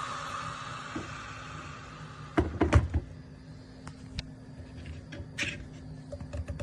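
Handling knocks and clatters, a cluster of loud knocks about two and a half seconds in, then scattered lighter clicks, over a steady low hum and a hiss that fades at the start.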